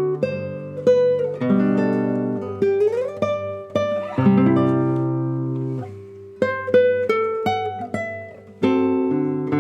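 Solo classical guitar playing a slow passage of plucked chords and arpeggios that ring out, with a sliding note rising about three seconds in. The playing fades to a soft point and then a loud chord comes in near the end.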